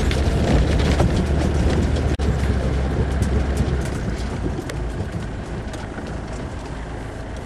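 A 4x4 off-roader driving over a rough, unsurfaced track: a heavy engine and drivetrain rumble with scattered knocks and rattles. It eases off and gets quieter about halfway through as the vehicle slows.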